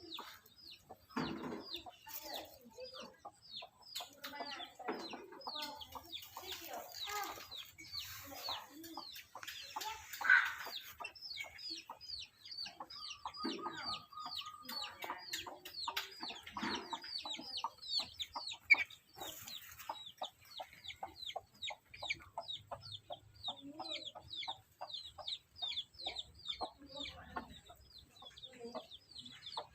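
Black-capped lory chattering: a fast run of short, high, downward-sliding chirps, about three a second, with lower clucking calls and a few louder cries in the first half.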